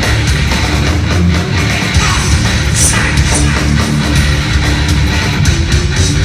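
Live heavy metal band playing loud and steady: distorted electric guitars, bass and drums with crashing cymbals, recorded from the crowd.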